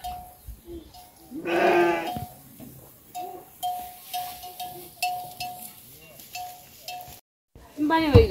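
A livestock bell clanking at one pitch, about twice a second, as an animal wearing it moves. About a second and a half in, one loud wavering bleat comes over it.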